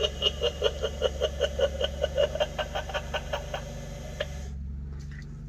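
Recorded cackling laugh from a Halloween novelty skull phone's speaker: rapid "ha-ha-ha" pulses about five a second for roughly three and a half seconds, fading out, over a low steady hum.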